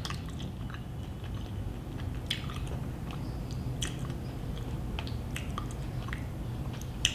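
A person chewing food close to the microphone, with short wet mouth clicks and smacks every second or so over a low steady hum.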